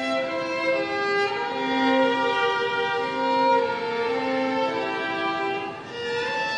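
Violin playing a slow melody in long held notes, sliding up into a note near the end.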